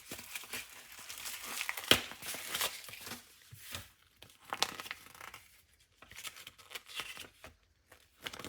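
Paper and plastic packaging being handled and unfolded, an irregular crinkling and rustling with sharp clicks and ticks, dying down to occasional clicks in the second half.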